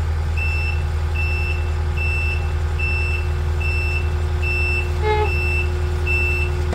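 Takeuchi TL10V2 compact track loader's reverse alarm beeping steadily, a short high beep about every 0.8 s, as the machine moves in reverse, over the steady running of its diesel engine. A brief short sound cuts in about five seconds in.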